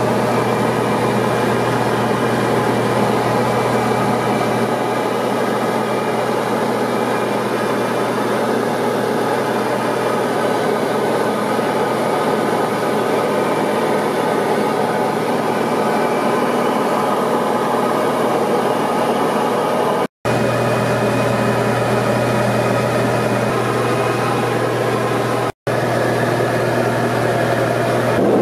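Diamond DA40 single-engine light aircraft's engine and propeller running steadily in flight, a constant drone heard inside the cockpit. The sound cuts out briefly twice in the last third.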